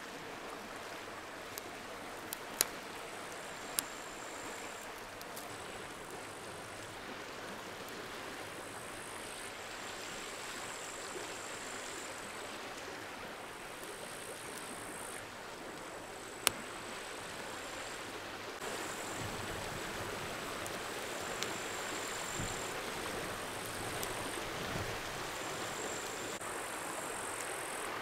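Wood campfire burning, its wood popping sharply a few times over a steady rushing background noise.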